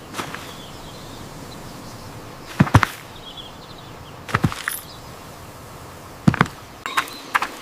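A few sharp clicks or knocks, some in quick pairs, spaced a second or two apart, over a steady background hiss.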